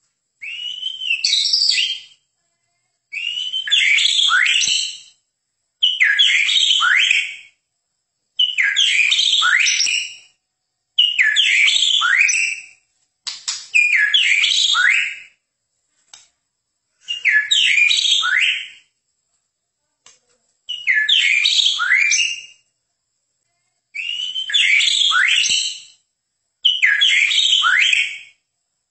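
White-rumped shama (Medan murai batu) singing: about ten loud whistled song phrases, each about two seconds long with quick rising and falling notes, separated by pauses of about a second.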